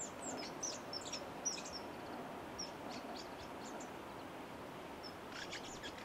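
Common kingfishers giving short, high, thin piping calls in quick clusters, most in the first two seconds and again near the end, over the steady rush of the stream.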